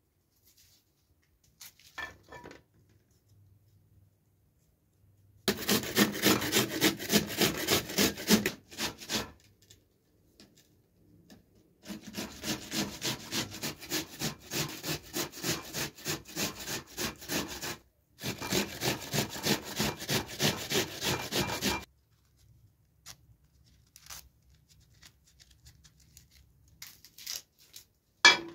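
A peeled onion grated on a flat metal hand grater: quick rasping strokes, about four a second, in three spells with short pauses between.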